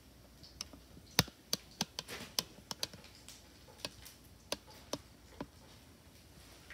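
Hot frying oil in a wok popping and crackling, with about a dozen sharp, irregularly spaced pops, as conch fritters fry.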